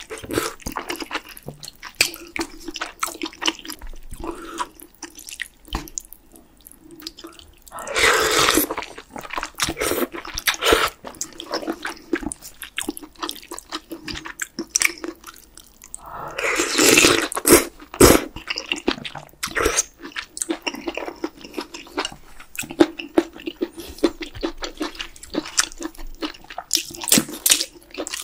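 Close-miked eating of spicy beef brisket soup (chadol yukgaejang): wet chewing and lip smacks throughout, with two longer slurps of noodles and broth, about 8 and 17 seconds in.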